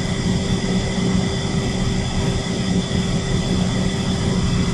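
Shinko steam turbine-generator running steadily at rated speed with no load on the generator: a continuous mechanical drone with several steady whining tones over it.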